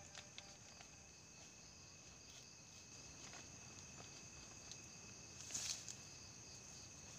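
Faint, steady high-pitched chorus of night insects such as crickets, with a brief rustling noise about five and a half seconds in.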